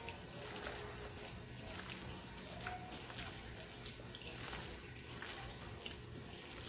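Hands kneading a raw ground-beef meatloaf mixture in a bowl: soft, irregular wet squelching and squishing.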